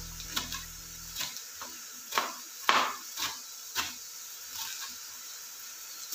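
Kitchen knife chopping cabbage on a cutting board: about ten short, crisp strokes at an uneven pace, roughly one every half second.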